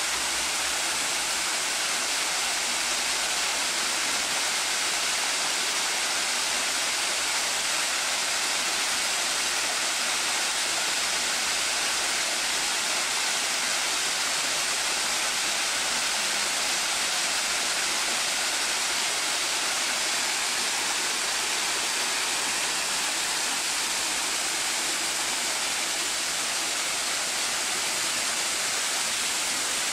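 Water from a garden waterfall pouring down a cascade of stone steps into a pond: a steady, even rush of splashing water.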